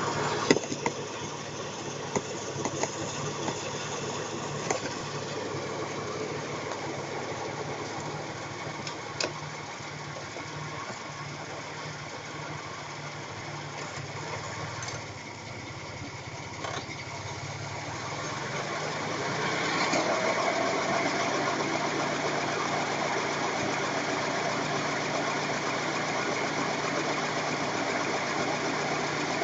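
1994 Ford Taurus running with the hum of a worn front wheel bearing. A few sharp clicks come in the first several seconds; the hum grows louder around two-thirds of the way in and then holds steady.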